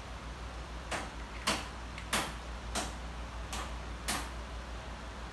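Hex (Allen) key tightening chair-assembly bolts: six sharp clicks about half a second apart as the key is turned in the bolt heads.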